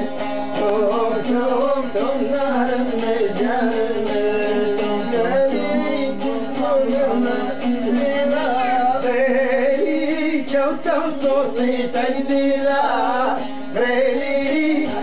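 A man singing an Assyrian folk song while plucking a long-necked lute, the sung melody bending up and down over a steady drone from the strings.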